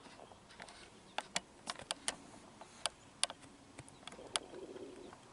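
Irregular sharp metallic clicks and taps of hand tools on the outboard's carburetor as it is being taken off, about a dozen of them.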